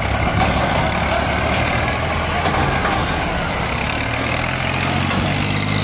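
Fiat 480 tractor's diesel engine running steadily under load, driving a wheat threshing machine, with a continuous mechanical rumble. A steady low engine tone becomes more pronounced about four and a half seconds in.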